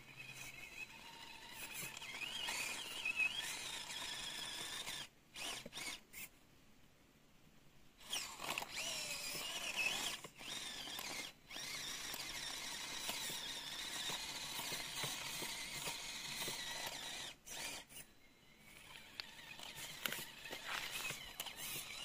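Small electric motor and gears of a 1/24 scale RC crawler whining, the pitch rising and falling with the throttle and cutting out and starting again several times.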